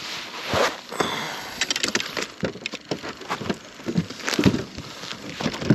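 A fast, irregular run of clicks, knocks and rattles from handling in a fishing boat while a freshly caught fish is dealt with.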